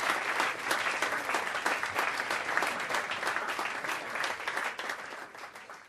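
Audience applauding at the end of an a cappella carol, many hands clapping quickly and densely, fading away near the end.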